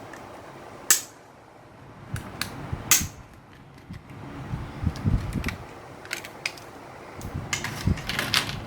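Sharp plastic clicks and handling noise as a RAM module is taken in hand for fitting into an open laptop. The two loudest clicks come about one and three seconds in; softer ticks and rustling handling follow in the second half.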